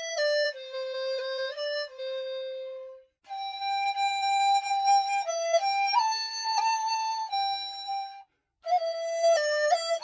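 Background music: a single melody line of held and stepping notes, which drops out twice for a moment, about three seconds in and near the end.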